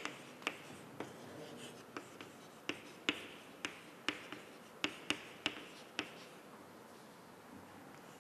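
Chalk writing on a chalkboard: a run of sharp taps and clicks as the chalk strikes the board with each letter stroke, about two a second, stopping about six seconds in.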